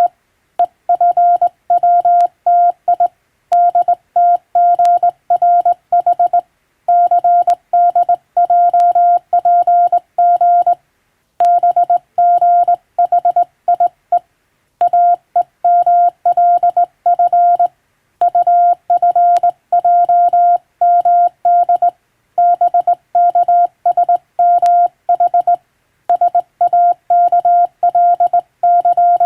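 Morse code sent by hand on a telegraph key, heard as a single steady beeping tone keyed on and off in dots and dashes, in word groups split by short pauses.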